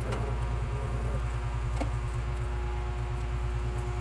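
A steady low machine hum with a constant tone, as from a motor or fan running, with faint wavering squeaks in the first second and a single soft click a little before two seconds in.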